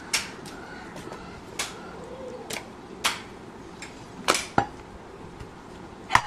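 A handful of irregular sharp knocks and clacks as a steel cleaver and goat meat are handled on a wooden tree-stump chopping block, loudest about four seconds in.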